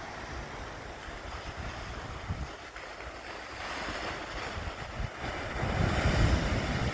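Wind buffeting the microphone over a steady wash of sea surf, the gusts growing stronger in the second half.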